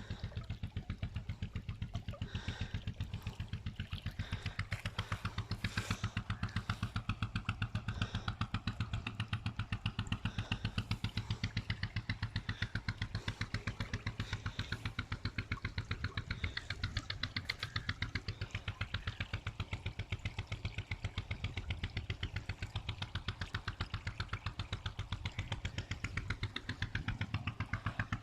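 An engine running steadily with a quick, even thudding beat.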